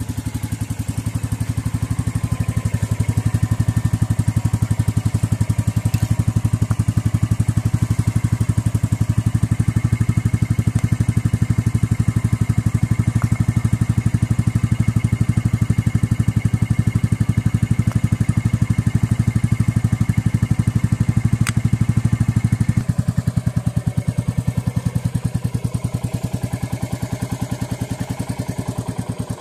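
Royal Enfield motorcycle engine idling with a steady, even beat. It gets a little quieter about three-quarters of the way through.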